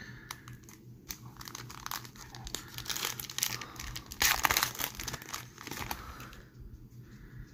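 Foil trading-card pack wrapper crinkling in the hands and being torn open by hand, with the loudest ripping and crackling about three seconds in and again just past four seconds, easing off near the end.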